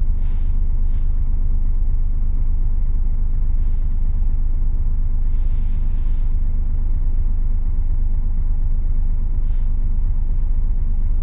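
Scania S500 truck's V8 diesel running with a steady low drone heard inside the cab, broken by about five short hisses of compressed air from the air-brake system, one of them lasting about a second.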